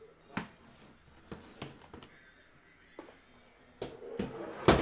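Sheet of paper being handled and rustled, with a few short crinkles spread out and a louder harsh sound near the end.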